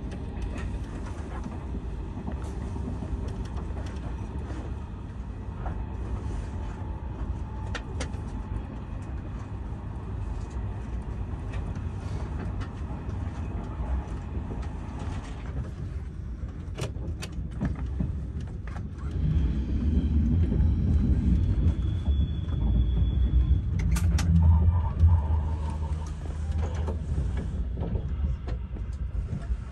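TGV inOui high-speed train running, heard from inside the carriage: a steady low rumble that grows louder about two-thirds of the way in, with a few sharp clicks and a brief high whine.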